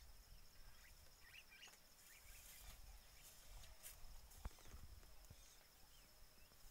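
Near silence: faint open-air ambience with a thin steady high buzz and a few soft clicks and knocks, one a little sharper past the middle.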